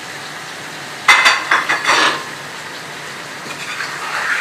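Chicken and masala frying in a karahi with a steady sizzle. About a second in comes a second-long burst of clattering and scraping against the pan.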